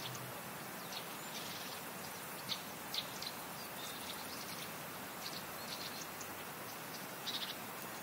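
Birds chirping now and then, short high chirps scattered irregularly over a quiet, steady background hiss.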